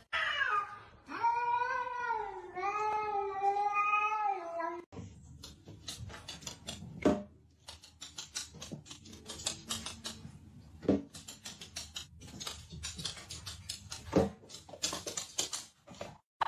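A domestic cat meowing in several long, drawn-out, wavering calls. About five seconds in it gives way to a string of irregular clicks and knocks.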